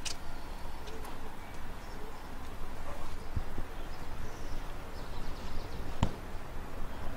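Outdoor background noise, a steady low rumble, with a sharp click at the start and another about six seconds in.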